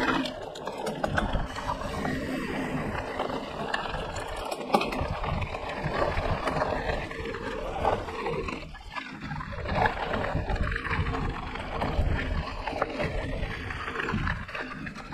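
Mountain bike riding a dirt trail: wind rushing and buffeting over the camera's microphone, with tyre noise and short knocks and rattles from the bike over bumps.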